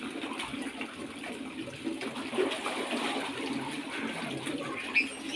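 Steady splashing and trickling of water in a small walled fish pond.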